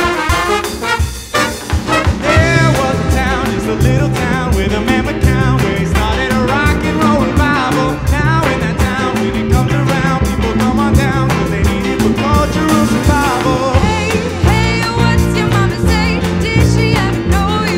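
Live rock and roll band playing an upbeat number, with a male and a female singer singing lead into microphones over drums and bass.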